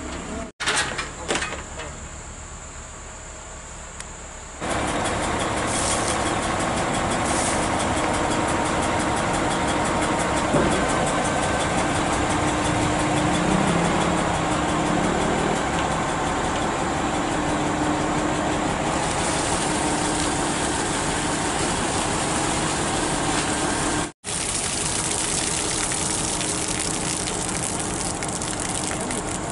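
Heavy diesel truck engine idling steadily close by. The first few seconds are quieter, with a few sharp clinks, before the engine noise comes in loud.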